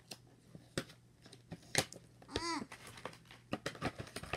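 Cardboard-and-plastic toy box being handled and opened: a run of irregular clicks, taps and crinkles. About halfway through comes one short squeak that rises and falls in pitch.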